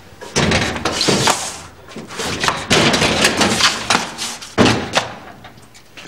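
Repeated loud bangs and thumps on a door, in several uneven runs of blows.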